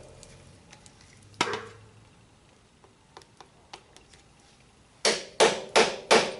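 Hammer blows on metal, spreading the split in a motorcycle's lower fork triple clamp to free a stuck fork tube. There is one blow about a second and a half in, a few light taps, then four quick, loud strikes near the end.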